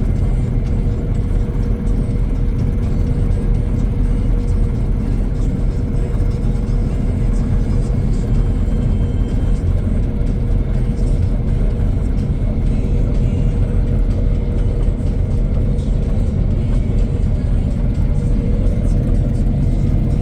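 Engine of a mowing machine running steadily under load, with a constant hum.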